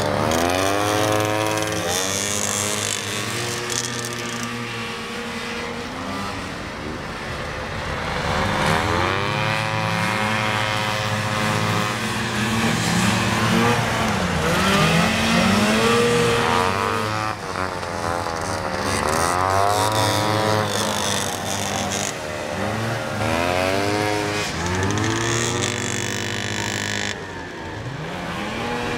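Several vintage two-stroke snowmobile engines racing, their pitch climbing and dropping over and over as the sleds accelerate out of turns and back off into them, with more than one engine heard at once.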